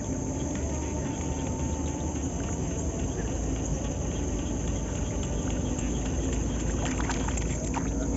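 Insects chirring steadily at a high pitch over a low, steady drone, with a few sharp clicks near the end.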